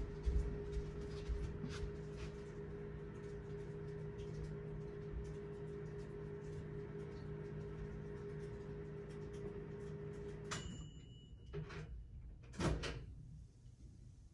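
Microwave oven running with a steady hum that stops abruptly about ten and a half seconds in, with a click and a brief high tone; a loud clunk of the microwave door follows about two seconds later.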